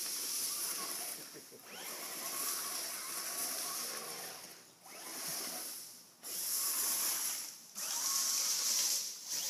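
Battery-powered remote-control toy car's electric motor whirring in spurts of one to two seconds, with short pauses between, as it is driven back and forth.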